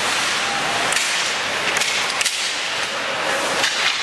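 Ice hockey play: skate blades scraping the ice, with several sharp clacks of sticks and puck spread through the moment.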